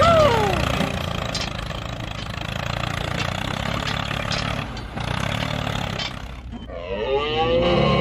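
A mini tractor's engine running steadily. Near the end it gives way to a long mooing call whose pitch rises and then falls.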